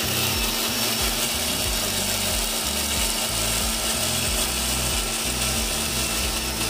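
Electric mixer grinder running steadily at speed, its blade grinding ginger, garlic and chilli into a wet paste in the steel jar.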